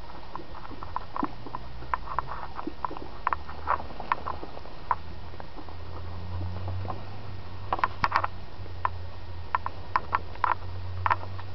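Slow, irregular footsteps crackling on dry leaves, twigs and grass, with clusters of crackles about eight seconds in and near the end, over a low steady hum.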